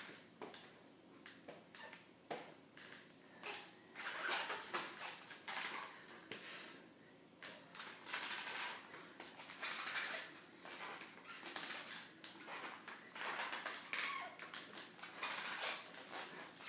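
Aluminium forearm crutch tips and braced feet knocking and scuffing on a hardwood floor in an uneven rhythm of clicks and scrapes, as a person in full hip-knee-ankle-foot braces drags herself forward step by step.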